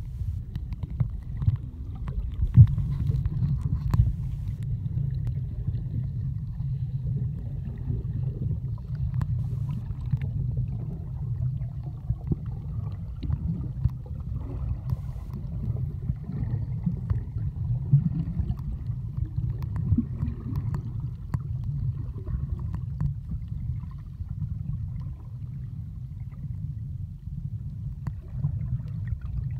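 Muffled underwater ambience: a steady low rumble of moving water, with scattered faint clicks and two sharper pops a few seconds in.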